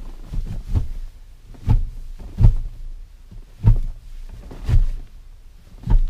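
A series of dull, low thumps, about six of them roughly a second apart and unevenly spaced.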